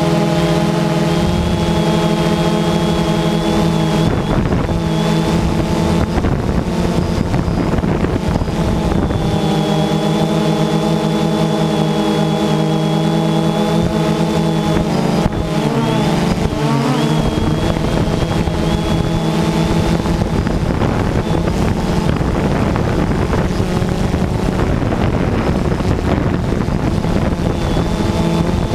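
DJI Phantom 2 quadcopter's electric motors and propellers running in flight: a steady buzzing hum made of several even pitches, which wavers up and down for a couple of seconds a little past the middle.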